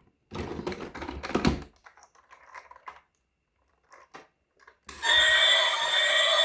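Fast clattering clicks of hard plastic toys being handled for about a second and a half, then a few scattered clicks. About five seconds in, a loud electronic tune with steady held tones starts.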